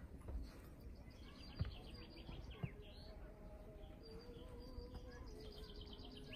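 Small birds chirping in quick runs of short, high notes, over quiet outdoor background noise. There are two soft knocks about a second apart, near the start, and a faint steady tone in the second half.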